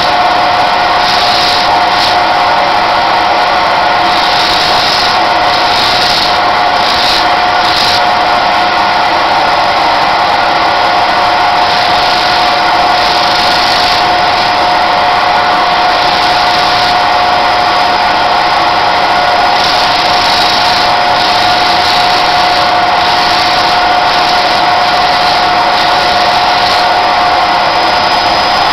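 Bench motor spinning a sanding disc with a steady high whine, grinding sperm whale jawbone; a brighter rasp comes and goes every second or two as the bone is pressed against the disc and eased off.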